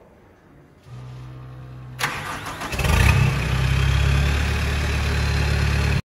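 Kubota 3.3-litre common-rail diesel in a GMC Sierra 1500 being remote-started. A low hum comes on about a second in, the starter cranks briefly about two seconds in, and the engine catches and settles into a steady idle. The sound cuts off abruptly near the end.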